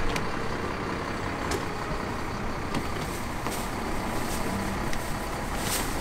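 Large tour coach's diesel engine idling with a steady low rumble, with a few light clicks scattered over it.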